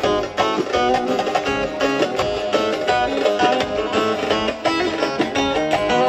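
Instrumental break of a Turkish dance song (oyun havası): a fast melody on a plucked-string instrument over a regular beat, between sung verses.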